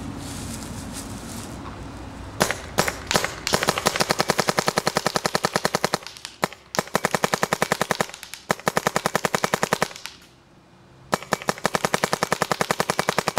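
Vanguard Creed paintball marker firing fragile paintballs: a few single shots about two seconds in, then long strings of rapid shots with brief pauses and a gap of about a second near the end. The paint goes through without barrel breaks.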